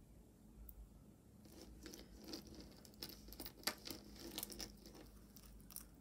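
Faint clicks, taps and light scraping of a metal square-link mood-stone bracelet being handled on a tabletop, starting about a second and a half in and stopping near the end.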